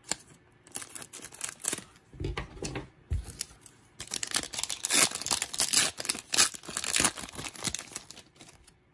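Plastic cello wrapper of a basketball card pack being torn open and crinkled as the cards are worked out. It starts with scattered crackles, then turns into a dense run of crinkling from about four seconds in that fades near the end.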